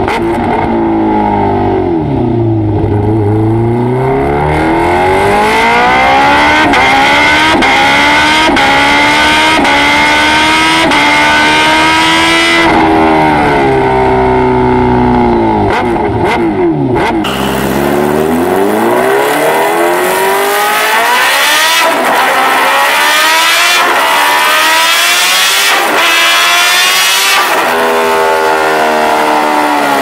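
Kawasaki Ninja H2's supercharged 998 cc inline-four engine revving hard through the exhaust, its pitch climbing in long rises and falling back several times.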